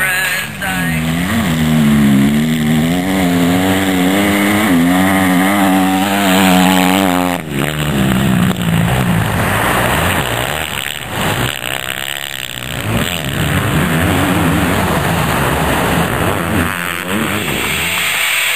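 Motocross dirt bike engine revving, its pitch wavering up and down as the throttle is worked through the sand. After a sudden break about seven seconds in, the note swells and fades in rising and falling sweeps as the bike rides around.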